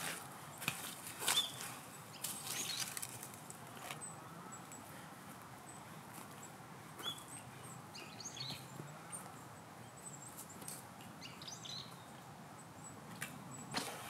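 Footsteps crunching through dry leaf litter and twigs on a steep forest slope, loudest at first and fading as the walker climbs away, with fresh close crunches near the end. Faint small-bird chirps come now and then in the quieter middle.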